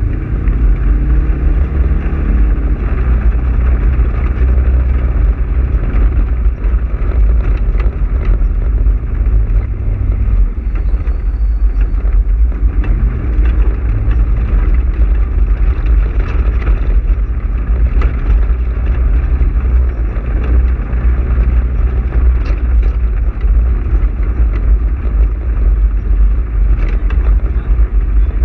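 Polaris RZR side-by-side's engine running as it drives a rough dirt trail, with a deep steady rumble. The engine pitch rises and falls with the throttle through the first ten seconds. Occasional sharp knocks and rattles come from the bumps.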